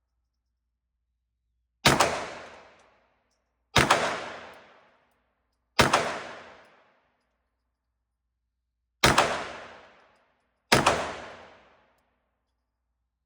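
Five pistol shots, unevenly spaced about two seconds apart with a longer gap before the fourth, each a sharp crack followed by a reverberant tail lasting about a second.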